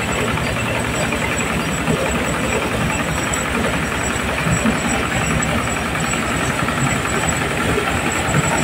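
Horizontal single-cylinder diesel engine running steadily with a rapid, even beat, driving a corn sheller.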